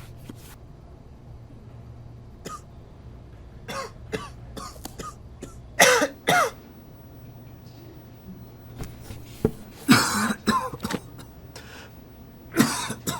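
A person coughing and clearing their throat again and again: short coughs at irregular gaps, with two loud coughs about six seconds in, a run of coughs around ten seconds in, and another loud cough near the end.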